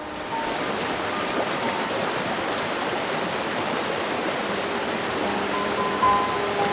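Small mountain creek rushing over rocks and boulders, a steady even rush of water. Faint music comes in near the end.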